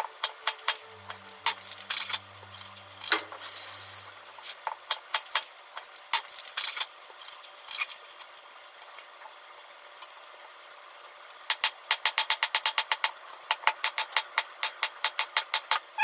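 Kitchen knife chopping on a wooden cutting board. There are scattered cuts through pea shoots at first, with a brief rustle about three seconds in. In the last few seconds comes a fast, even run of chops, about five a second, slicing shiitake mushrooms.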